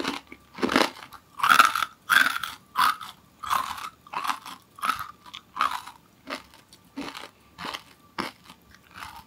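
Close-miked crunching of someone chewing fried, sugar-coated nurungji (scorched rice crisps): a crisp crunch every half second or so, growing softer toward the end as the mouthful breaks down.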